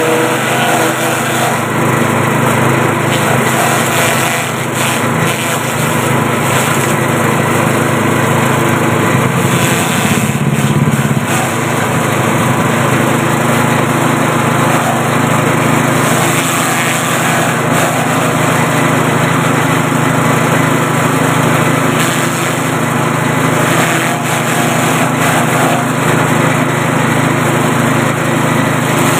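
A 6.5 hp engine drives a grass chopper machine, running steadily and loudly while long grass stalks are fed into its hopper and chopped.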